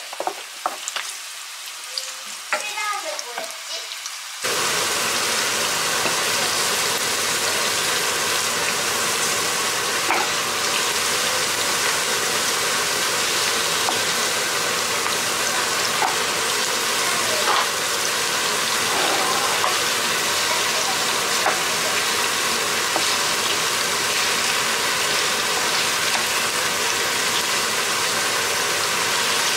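Diced onions, and then minced beef, frying in oil in a pan and stirred with a wooden spoon. At first there are only a few scattered clicks of the spoon. About four seconds in, a loud steady sizzle starts and runs on, with occasional spoon taps.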